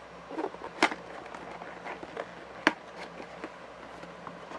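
Hands opening and handling a toy's packaging: scattered clicks and taps, with two sharper snaps, one just under a second in and one about two and a half seconds in.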